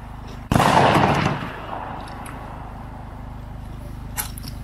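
A single rifle shot about half a second in, loud, ringing out for nearly a second. A short sharp click follows near the end.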